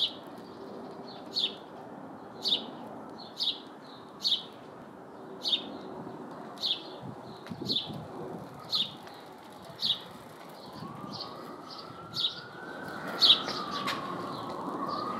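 A small bird repeating a short, high chirp about once a second over a steady hum of city background. From about eleven seconds in, a faint siren wails, rising and falling.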